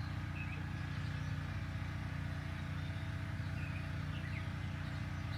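A steady low hum, with a few faint short high chirps scattered through it.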